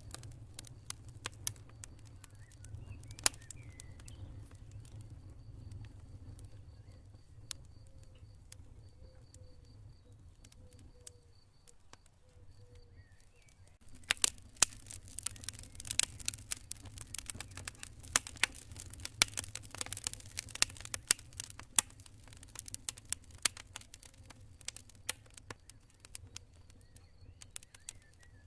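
Campfire wood burning with sharp crackles and pops over a low rumble of the flames; the crackling is sparse at first and grows dense about halfway through. A cricket chirps faintly in a steady high pulse through the middle of the first half.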